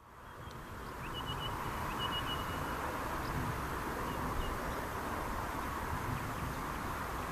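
Open-air background noise: a steady hiss with a low rumble, fading in over the first second, with a few faint high chirps about a second in.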